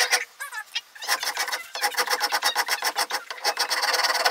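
Hand rasp scraping over an oak knife handle in quick back-and-forth strokes, shaping the wood. There is a short pause about half a second in, then steady rasping.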